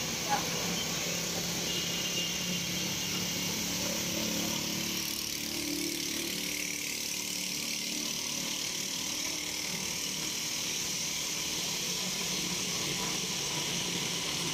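Steady roadside background noise: a low engine-like hum under a constant hiss.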